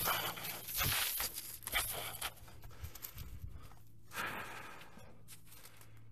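Footsteps crunching and sliding through dry fallen leaves and twigs on a steep dirt slope, loudest in the first two seconds, then quieter, with another rustle about four seconds in.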